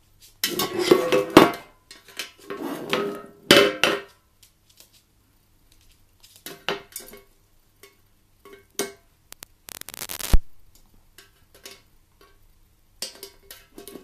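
Small painted tin watering can clanking and rattling on a wooden floor as an African grey parrot pushes it over, rolls it and pecks at its rim. It comes in several separate bursts of metallic clatter, with one sharp bang about ten seconds in.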